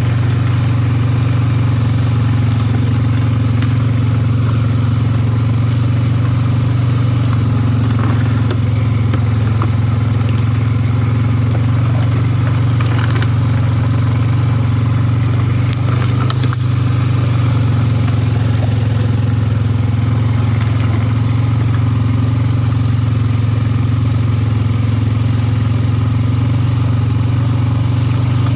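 ATV engine running at a steady low speed while being ridden, a constant drone with a few brief clicks and knocks over it.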